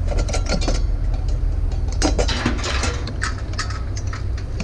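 Metal scrap parts being handled and worked apart, giving a run of sharp clinks and knocks in the first second and again about two seconds in, over a steady low rumble.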